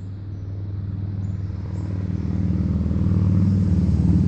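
Engine rumble of a passing motor vehicle, growing steadily louder as it approaches and loudest near the end.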